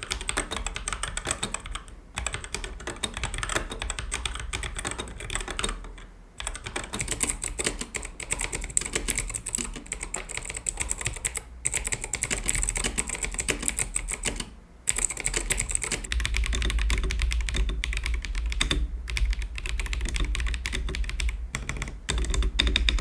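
Rapid typing on mechanical keyboards, taken in turn for a sound comparison, including a customised board and a Gamakay K61 with Gateron switches. The runs are dense and are broken by a few short pauses. The spacebar stabilisers can be heard, and one board sounds plasticky and high-pitched, with a bounce to every key, which the reviewer judges a poor sound.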